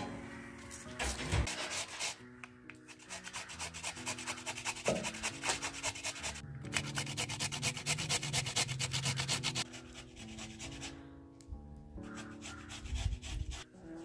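Raw potato being grated by hand on a flat metal grater into a metal pot: quick, even scraping strokes, with a short break about halfway, stopping a few seconds before the end. Soft background music underneath.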